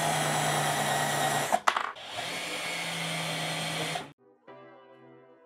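Cordless drill running steadily in two long runs with a brief clatter between them, driving screws into a desk frame; it stops about four seconds in, and faint background music follows.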